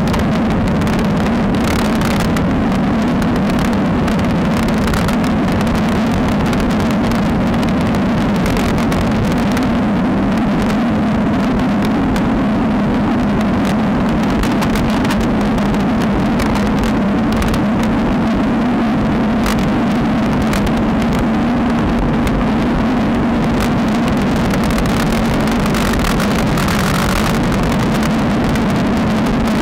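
Steady wind rush and rumble on a bike-mounted action camera's microphone while riding a road bike, with tyre noise on asphalt underneath.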